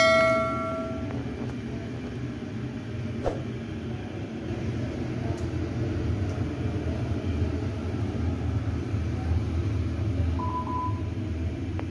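Steady low rumble of the electric air blower that keeps an inflatable bounce house inflated. At the start a bell-like chime from a subscribe-button animation rings out and fades within about a second.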